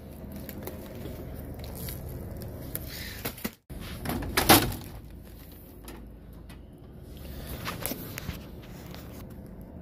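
Handling noise while restocking a snack vending machine: a loud, short knock or rustle about halfway through and a few lighter clicks later. The sound breaks off completely for a moment just before the loud noise.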